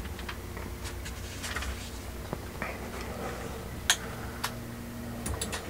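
Ender 3 V2 3D printer's stepper motors driving the print head and bed, a low steady tone with a few faint clicks, stopping about five seconds in.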